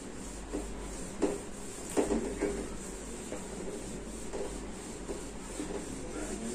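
Whiteboard duster wiping across a whiteboard in repeated, irregular strokes, with a few sharper, louder strokes between about one and two and a half seconds in.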